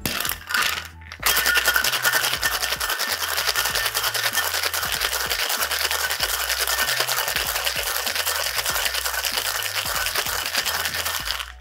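Ice cubes rattling fast and hard inside a stainless steel tin-on-tin cocktail shaker, shaken for about ten seconds after a few knocks as the tins are fitted together, stopping just before the end. Background music's bass line plays underneath.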